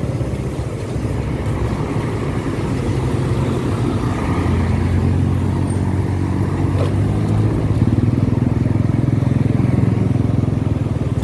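Road traffic: motorcycle and car engines passing on a wide street, with an engine drone that grows louder from about four seconds in.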